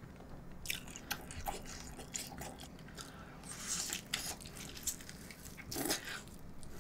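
Close-up mouth sounds of gnawing meat off a braised rib bone and chewing it: irregular wet smacks, clicks and tearing, with two louder bites about halfway and near the end.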